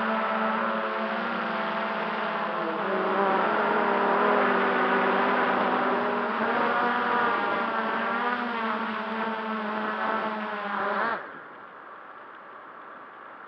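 MJX Bugs 3 quadcopter's brushless motors whining, their pitches wavering as the drone descends and lands. About eleven seconds in, the motors cut off abruptly, leaving only a faint hiss.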